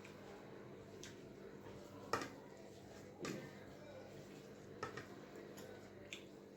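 Eating sounds: a handful of scattered soft clicks and taps as someone eats, the sharpest about two seconds in, with quieter ones spread through the rest.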